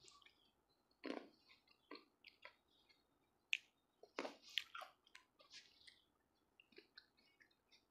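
Close-mouthed eating of green grapes: irregular wet clicks and squishes as the grapes are bitten and chewed, with a few sharper bites about a second in and around the middle.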